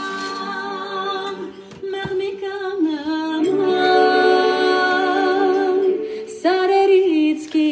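A voice singing a melody in long held notes with vibrato.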